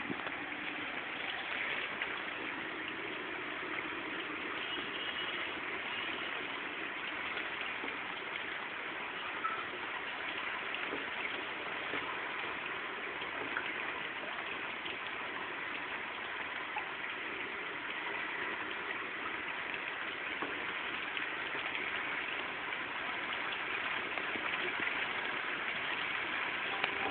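Steady rain falling on standing floodwater: an even hiss with faint scattered drop ticks.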